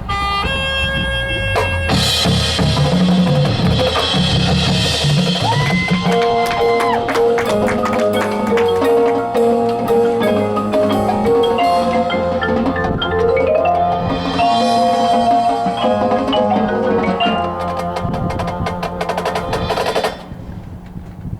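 High school drumline and front ensemble playing a percussion show. Marimba, xylophone and glockenspiel carry the melody over dense drum strokes, and the music drops away briefly near the end.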